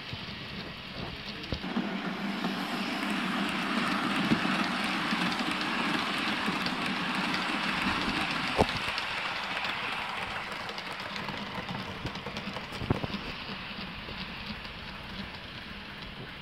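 Model freight train of Electrotren covered cargo wagons running on the layout's track: a steady rolling noise that swells as the train passes close, about halfway through, then fades away. A few sharp clicks stand out over it.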